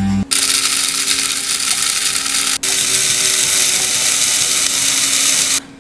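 Electric blade coffee grinder whirring as it grinds a load of whole beans. It runs in two stretches with a brief break about two and a half seconds in, then stops abruptly just before the end.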